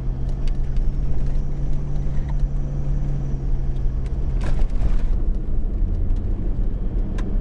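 Toyota LandCruiser 200 series V8 driving on a gravel road: a steady engine drone over tyre rumble, with small stones clicking now and then. The engine note shifts about four and a half seconds in, along with a brief rougher rush.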